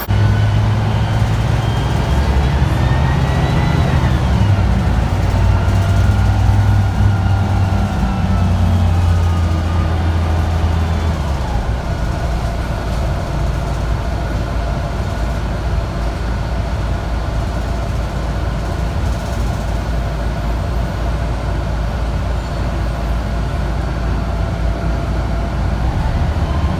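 Mercedes-Benz O405G Hispano Habit articulated bus driving, heard from inside the passenger cabin. The low engine drone shifts in pitch several times over the first ten seconds or so, with a whine that rises and then falls about three seconds in. It then settles into a steadier running drone.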